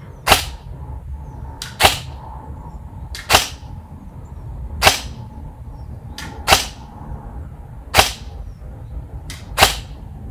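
Airsoft AEG (an AR-15-style electric rifle) firing single shots, seven sharp reports evenly spaced about a second and a half apart. Each report has a faint click just before it.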